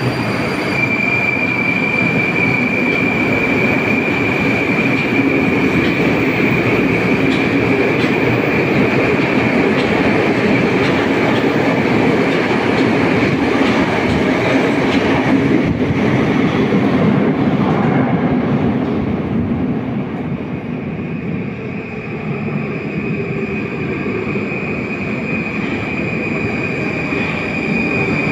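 Metro train pulling out of an underground station: a steady high whine over the running noise of the train as it speeds away and fades. A few seconds before the end, an 81-775 "Moskva 2020" metro train is heard approaching, and the high whine returns.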